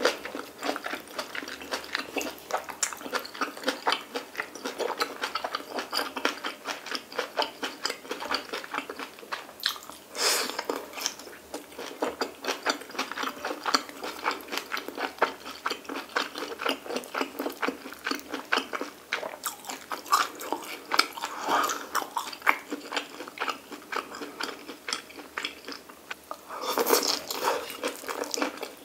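Chewing of pork belly and stir-fried kimchi: a steady run of small wet clicks and crunches from the mouth, with louder bursts about ten seconds in and again near the end.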